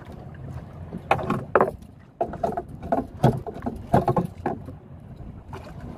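Spear line being hauled in hand over hand over the side of a wooden boat: a run of irregular knocks and rubbing sounds, several of them loud.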